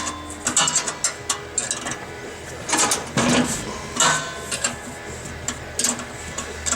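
Scattered metallic clicks and clanks of a wrench working on the sander's mounting bolts, over a steady low hum.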